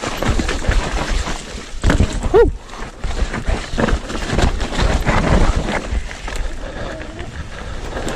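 Electric mountain bike rattling and clattering as it rolls fast down a rough, leaf-covered dirt trail, with tyre rumble, frequent knocks from bumps and roots, and wind on the microphone. A short pitched squeak cuts through about two and a half seconds in.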